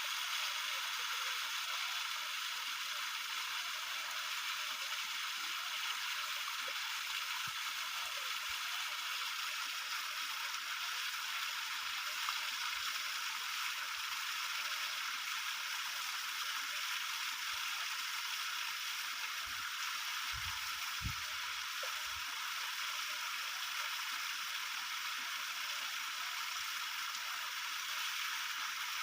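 Steady rushing noise like flowing stream water, even throughout, with a few soft low thumps about two-thirds of the way through.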